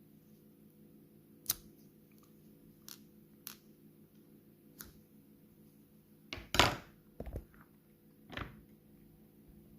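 Small gum packaging handled by hand: a few scattered sharp clicks and taps, then a louder crackle about six and a half seconds in and a shorter one near the end.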